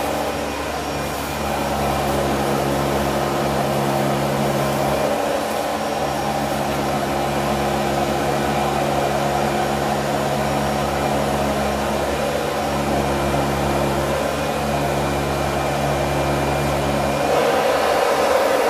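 Dyson vacuum cleaner running with a steady motor hum as its cleaner head moves over carpet. Near the end the sound shifts, the hiss growing louder and the low hum dropping, as the head reaches a pile of debris.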